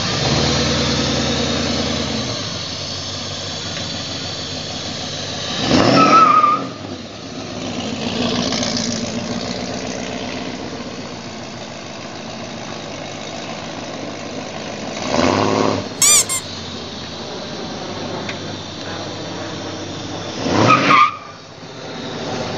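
Kopavi V8 trike's engine running as the trike drives along the street, swelling loud three times: about six, fifteen and twenty-one seconds in. A short high squeal comes around sixteen seconds in.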